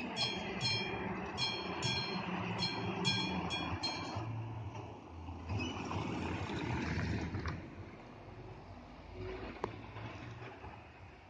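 Level-crossing warning bell ringing in quick, irregular strokes while the barrier arms lower with a low motor hum; the bell stops about four seconds in as the barriers come down, leaving a fainter rushing noise that fades.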